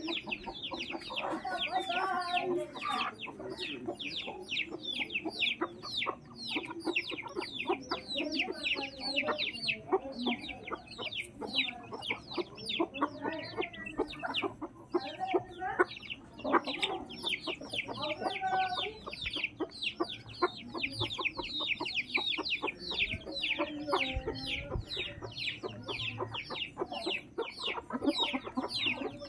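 A flock of chickens with chicks: the chicks cheep non-stop in quick, high, falling peeps, several a second, while the hens cluck in short low bursts every few seconds.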